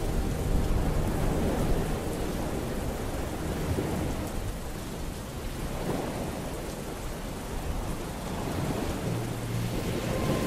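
Steady rain with a low rolling rumble of thunder, an ambient storm track. Near the end a few low musical tones come in.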